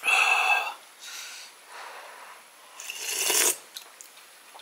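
A person blowing hard to cool a spoonful of piping-hot dumpling casserole: a strong breathy blow right at the start, a softer puff about a second later, and another strong blow of air about three seconds in.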